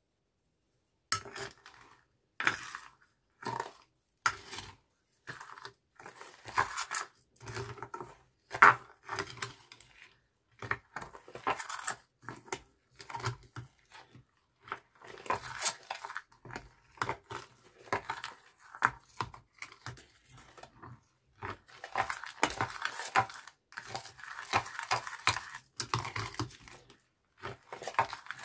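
Plastic spoon stirring a thick, wet slime mixture of coloured glue in a glass baking dish: squelching and scraping against the glass in short repeated strokes. The strokes run together more densely about two-thirds of the way through.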